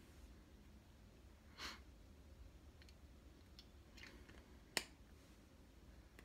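Near silence: room tone, with one short breath about a second and a half in, a few faint clicks, and one sharp click about three-quarters of the way through.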